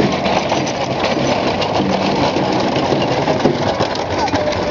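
Wooden-spoked wheels of a hand-pulled cannon carriage rolling over cobblestones: a steady, dense rattling rumble.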